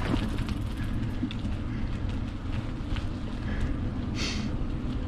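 Steady low rumble of wind buffeting the microphone and tyre noise from a bicycle being ridden, with a few faint ticks and one short high squeak about four seconds in.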